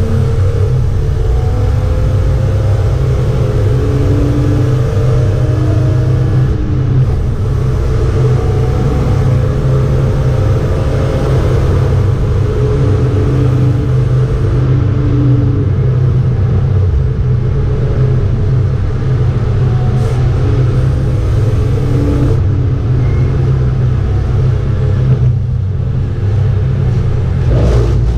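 BMW 325 E36 race car's straight-six engine running hard at high speed, heard from inside the cabin together with road noise as a loud, steady drone. The sound drops away right at the end.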